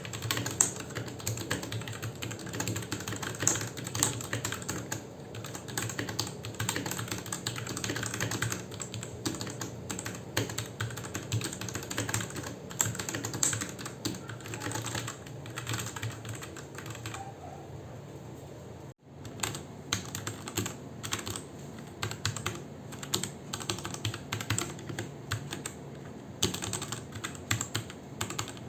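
Close-up typing on a Royal Kludge mechanical keyboard: a fast, irregular stream of key clicks and clacks from its switches, thinning out and stopping for a moment about two-thirds of the way through before resuming.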